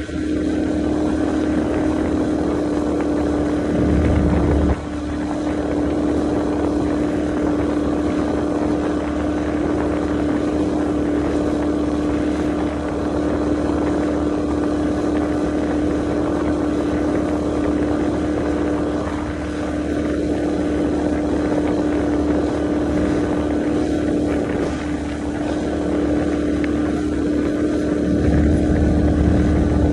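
Bass boat's outboard motor running steadily at speed with a constant drone, over rushing water and wind on the microphone; the wind rumble swells briefly about four seconds in and again near the end.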